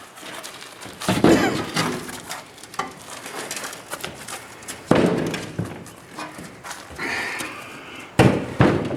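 Heavy steel floor plates, about a quarter inch thick, being set down onto a stack. Three heavy thuds land a few seconds apart, each ringing briefly, with lighter knocks and a short scrape between them.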